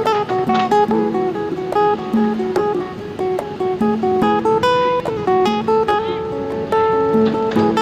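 Background music: an acoustic guitar playing a melody of plucked notes at an even pace.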